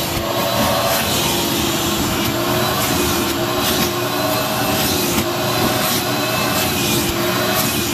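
Wet/dry shop vac running steadily, its motor whining under a rush of air as the hose end is worked over carpet to suck up vomit.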